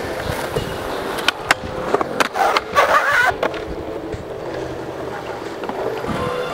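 Skateboard wheels rolling on smooth concrete, with a few sharp clacks of the board between about one and two seconds in and a louder, rougher stretch near the middle.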